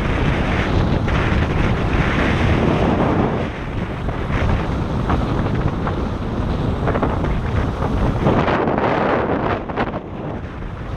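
Wind buffeting the microphone over ocean surf breaking and washing against the jetty's rocks, a loud, steady rush that eases briefly near the end.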